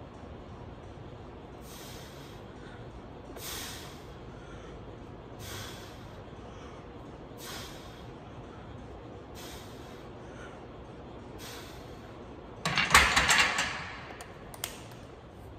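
Sharp, hissing exhales from a man bench-pressing a barbell, about one every two seconds, one with each rep. Near the end comes a much louder, longer straining breath on the hardest push, followed by a single sharp knock.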